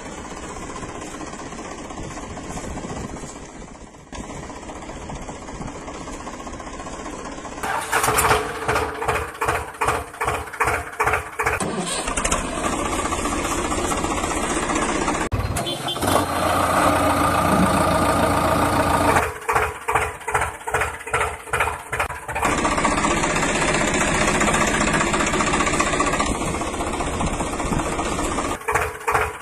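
Heavy vehicle engine sounds that switch between a steady run and a rhythmic chugging of about three beats a second, the chugging stretches being the loudest.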